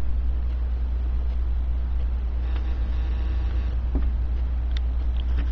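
Steady low outdoor rumble, like distant traffic. From about two and a half to four seconds in there is a faint, distant pitched tone.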